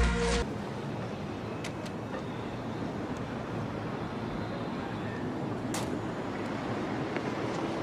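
Music cuts off about half a second in, leaving steady city street traffic ambience, with a couple of faint clicks.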